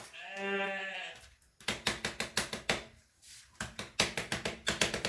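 A short hummed tone, then fast, even knocking and rattling, about eight strikes a second in two runs, as a vacuum cleaner's extension rod is knocked and shaken to free dirt stuck inside it.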